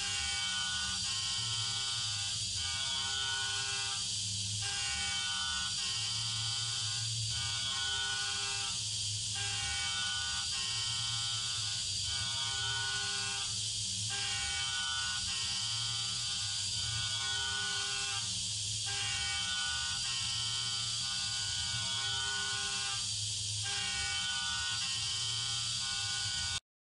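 CNC milling machine's spindle running at high speed with the cutter machining the ports of an aluminium cylinder head, coolant spraying onto the cut. A steady whine over a hiss, dipping briefly about every two and a half seconds, stops suddenly near the end.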